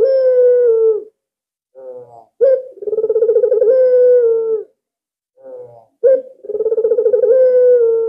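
Albino Barbary dove (burung puter) cooing repeatedly: each phrase opens with a few soft short notes and a sharp note, then a long purring coo that falls slightly in pitch, lasting about two seconds. The phrases come about every three and a half seconds, one ending just after the start, then two full coos.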